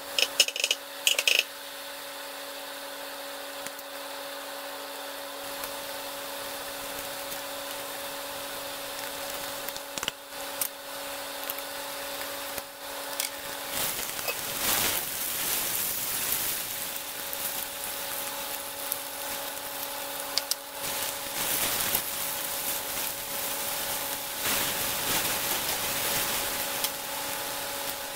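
Vegetables sizzling and steaming in a frying pan on a gas burner, with a steady hum underneath. A few clinks of the glass lid come at the start, and the sizzle gets louder about halfway through when the lid comes off, and again in the last several seconds as the stir-fry is tossed.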